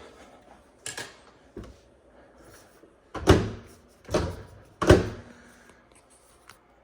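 Microwave door being opened and shut, checking the newly fitted handle: a few knocks and latch clunks. The three loudest come about a second apart, starting about three seconds in.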